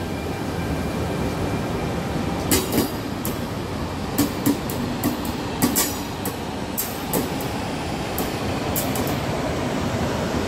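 Double-deck Casaralta passenger coaches rolling slowly past as the train pulls out, with a steady rumble of wheels on rail and irregular sharp clicks and knocks from the wheels and couplings.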